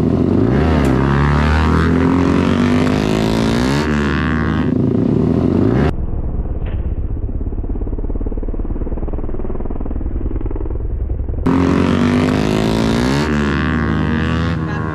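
Motorcycle with an aftermarket exhaust revving, the pitch climbing and dropping again and again. A muffled stretch in the middle sounds like a separate clip cut in.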